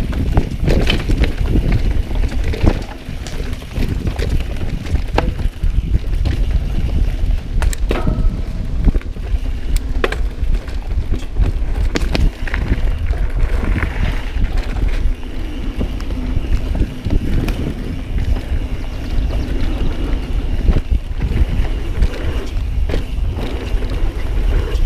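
Wind buffeting an action camera's microphone during a downhill mountain bike descent, with tyres rolling over a dirt trail. The bike's chain and frame give off irregular rattles and sharp knocks as it runs over bumps.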